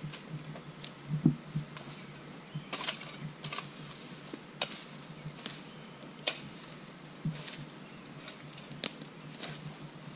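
Scattered knocks, snaps and scrapes from debris being pulled and cleared out of a ditch, irregular and unhurried, with one heavier thump about a second in.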